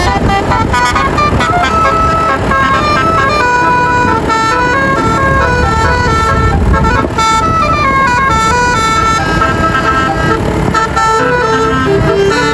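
Basuri multi-tone musical bus horn playing a fast melody of stepping notes, several tones sounding together, over steady low noise.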